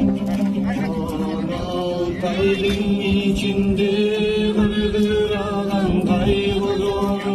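A Kyrgyz song: a voice singing long, wavering held notes over a strummed komuz, the three-stringed plucked Kyrgyz lute.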